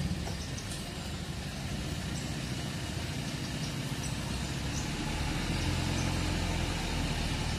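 An engine idling steadily, louder from about five seconds in, with faint light ticks over it.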